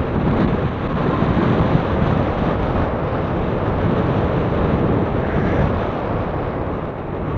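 Steady wind rush buffeting the microphone of a camera riding on a moving recumbent bicycle, heavy at the low end.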